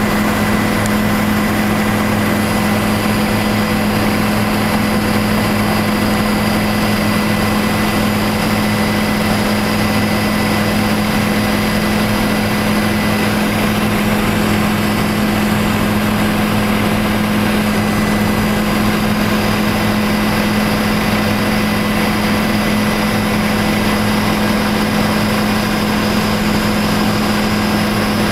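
Tour helicopter in flight, heard from inside the cabin: engine and rotors running steadily as a loud, unchanging drone with a strong low hum and a thin high tone.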